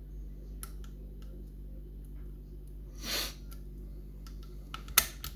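Faint scattered clicks of a lever-lock pick working against the levers and bolt of an ERA Invincible mortice lock, with one sharp click about 5 s in. A short breath-like rush of noise comes about 3 s in.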